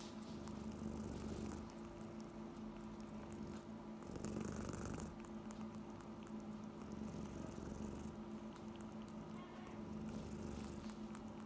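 Domestic cat purring close up, a low steady rumble that swells and fades every few seconds with its breathing.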